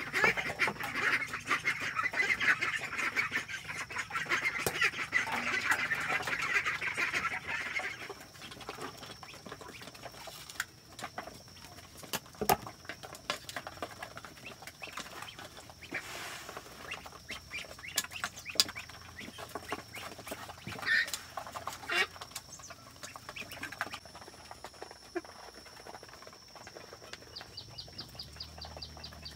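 A flock of domestic ducks quacking loudly together, crowding to be fed; after about eight seconds the chorus drops away, leaving scattered sharp clicks and a few short calls as they eat.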